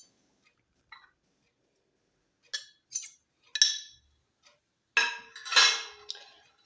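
A spoon clinking against a saucepan a few times, then a louder clatter of spoon on pan about five seconds in, as a spoonful of dried lavender is tipped into olive oil.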